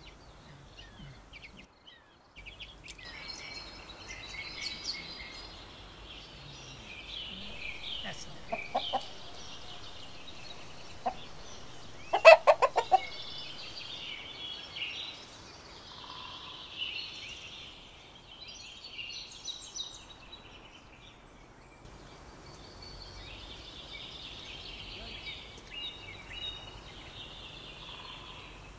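Domestic chickens clucking, with a loud quick run of clucks about twelve seconds in and a shorter one a few seconds earlier, over continuous chirping of small birds.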